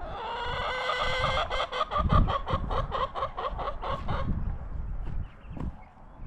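A rooster crowing: one long call of about four seconds that breaks into rapid pulses in its second half.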